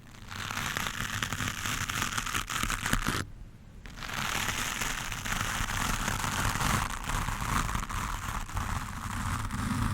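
Stiff-bristled wooden brush scrubbed hard over a microphone, making a dense, scratchy rustle. It stops briefly about three seconds in, then starts again.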